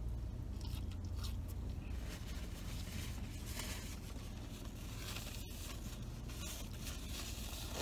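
Faint chewing of a French fry, with small mouth and handling noises, over a steady low hum inside the parked car. Paper crinkles near the end as a sheet is unfolded.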